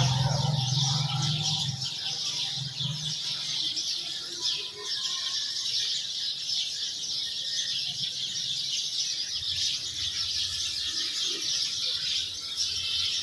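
A flock of house sparrows chirping busily and without pause, many short overlapping chirps. A low vehicle hum fades away in the first couple of seconds.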